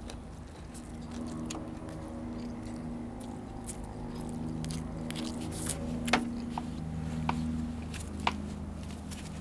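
Chewing and eating sounds with several sharp utensil clicks, the sharpest a little past the middle and one near the end, over a low humming tone that shifts pitch every second or two.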